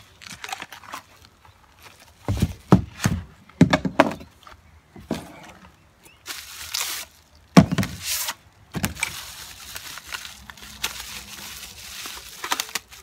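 Bubble wrap and plastic packing rustling and crinkling as they are pulled off a new bike's saddle and seatpost, with several knocks and thumps as parts are handled.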